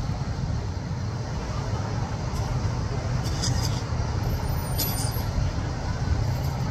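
Steady low rumble of a motor vehicle's engine moving slowly through a crowd, over the murmur of many voices, with a few faint clicks midway.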